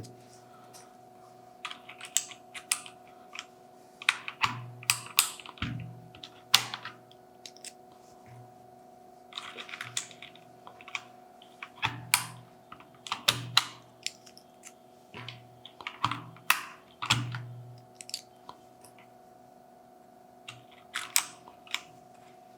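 Keycaps being pulled off and pressed back onto the Cherry MX Red switches of an ASUS ROG Strix Scope mechanical keyboard with a keycap puller: sharp plastic clicks and clacks in irregular clusters of a few at a time, with pauses between. A faint steady hum lies underneath.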